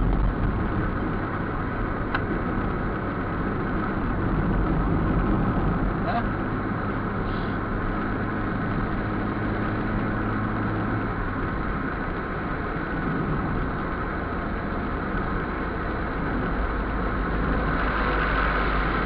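Car engine and road noise heard inside the cabin while driving on a highway, a steady drone. A low hum within it drops away about eleven seconds in.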